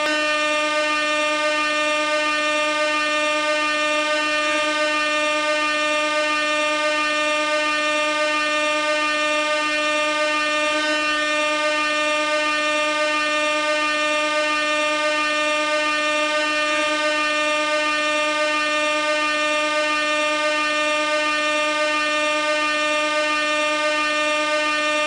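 Air horn sounding one continuous note, unbroken and at a steady pitch and loudness.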